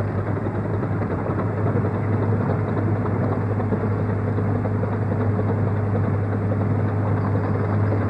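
Steady, muffled engine drone with a strong low hum, unchanging throughout, as of construction machinery or a work barge's motor heard on an old film soundtrack.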